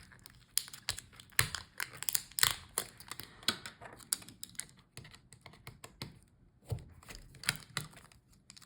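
Irregular light clicks and taps of a small screwdriver and fingers working on a laptop's palmrest-keyboard assembly, taking out the touchpad screws.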